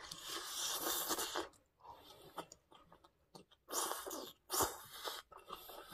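Close-up slurping as a spoonful of kimchi fried rice trailing strands of kimchi is sucked into the mouth: one long slurp over the first second and a half, then shorter slurps and chewing noises about four and five seconds in.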